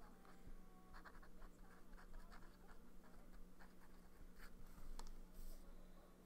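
Fountain pen nib scratching softly across paper in short irregular strokes while writing.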